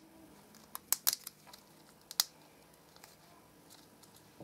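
A few sharp clicks and taps of toy packaging being handled during an unboxing: a quick cluster around one second in, then one more a second later.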